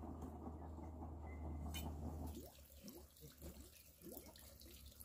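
Water dripping in scattered short plops. A steady low hum and hiss under it stops after about two seconds.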